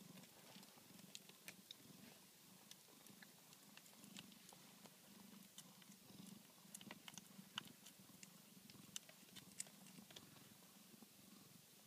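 Tonkinese mother cat purring softly and steadily while her newborn kittens nurse, with faint, scattered small clicks throughout.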